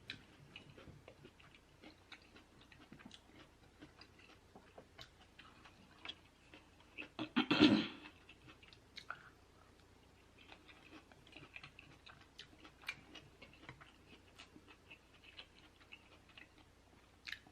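A person chewing food close to the microphone: soft, wet mouth sounds and many small clicks, with one louder, brief noise about halfway through.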